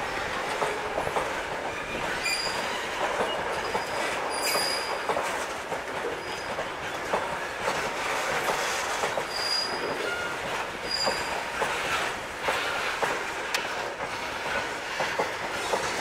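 Loaded BCNA covered freight wagons rolling past on steel rails: a steady rolling rumble with clatter of wheels over rail joints, and brief high-pitched wheel squeals several times.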